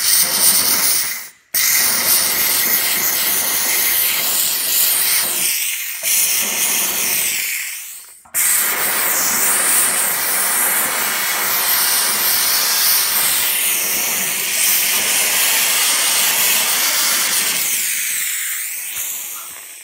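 Steam cleaner's narrow jet nozzle blasting steam into a radiator, a loud hiss released in spurts. A short burst stops after about a second and a half, then a long blast stops about eight seconds in, and a second long blast follows and fades near the end.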